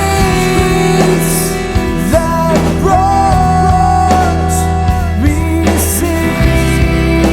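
Rock song with guitar and a singing voice, loud and steady.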